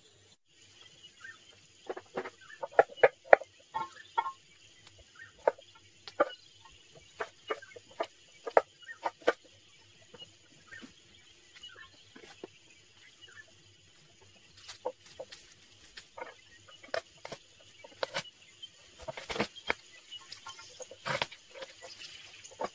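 Kitchen knife chopping vegetables on a wooden cutting board: irregular sharp knocks of the blade against the wood, a quick run of cuts about two to four seconds in, scattered single cuts after that, and another run near the end.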